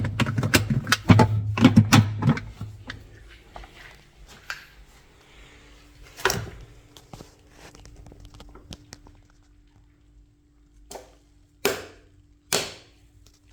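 A quick run of knocks and clatters for the first couple of seconds, then three separate thunks spread over the rest, over a faint steady hum that comes in about five seconds in.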